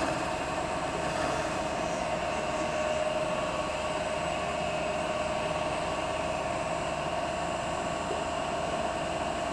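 CNC lathe spindle running at 1000 rpm with no cut being taken: a steady mid-pitched whine over an even mechanical hum.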